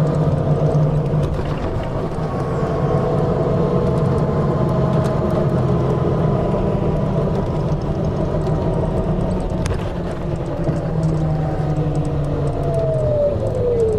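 Steady rumble and running noise of a moving road or rail vehicle, heard from inside, with a few held engine or drive tones; near the end one whine slides down in pitch.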